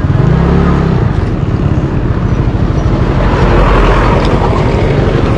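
Motor scooter engine revving up as the bike pulls away, then running along at road speed, under heavy wind rumble on the microphone.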